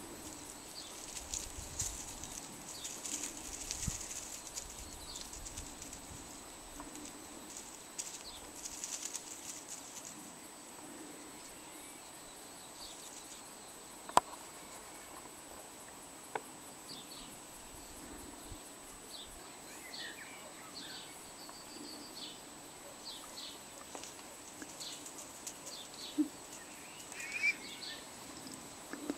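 Dry leaf litter and bark mulch rustling as a cat paws at and mouths a dead stoat, with one sharp click about halfway through. Faint bird chirps come in near the end.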